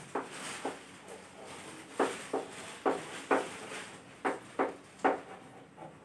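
Chalk writing on a chalkboard: a string of short, sharp taps and scrapes as letters are written, irregular, about two a second.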